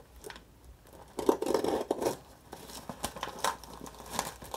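Plastic mailer package being cut and torn open with a blade, the plastic crinkling and tearing. The loudest stretch comes about a second in and lasts about a second, with scattered smaller rustles and clicks around it.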